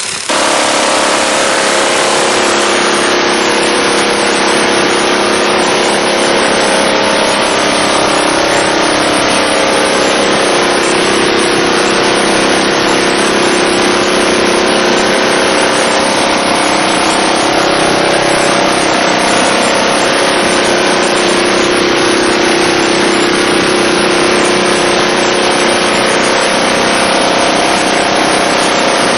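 Minigun firing one long continuous burst, its rate of fire so high that the shots merge into a single steady, loud drone.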